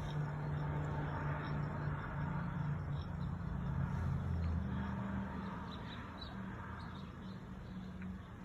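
Regency ceiling fan's spinner motor with its flywheel, spun by hand and turning freely with a low hum that rises in pitch about halfway through and then slowly fades. The smooth, free spin shows the bearings are still in good shape.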